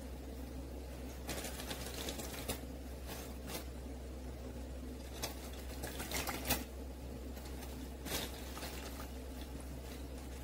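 A lemon half squeezed by hand over a glass measuring cup: scattered soft squelches, clicks and drips of juice, the loudest about six and a half seconds in, over a steady low hum.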